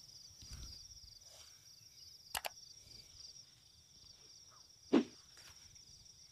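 A field cricket singing steadily, a high rapidly pulsed chirping trill. A sharp double click comes about two and a half seconds in, and a louder short knock about five seconds in.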